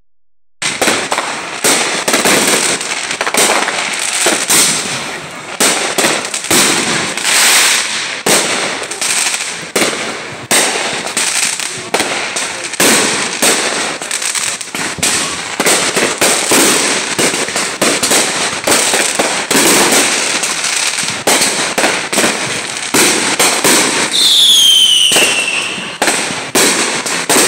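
Aerial fireworks going off in rapid succession: a dense run of sharp bangs and crackles. Near the end a high whistle falls in pitch over a second or two.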